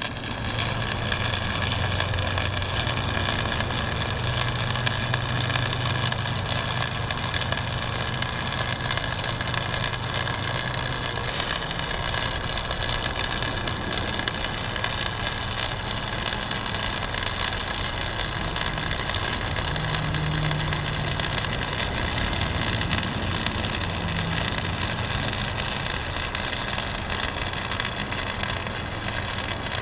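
Flux-cored wire welding arc on mild steel pipe, crackling and sputtering steadily as the bead is run, with a steady high hum from the wire-feed welder underneath.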